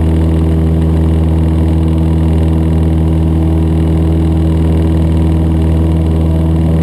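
Cessna 152's four-cylinder Lycoming O-235 engine and propeller droning steadily in cruise flight, heard inside the small cabin.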